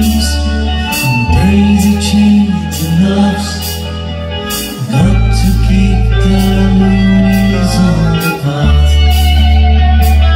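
Live band playing: an electric bass holding long low notes under a singing voice, with drums and cymbal strokes about twice a second.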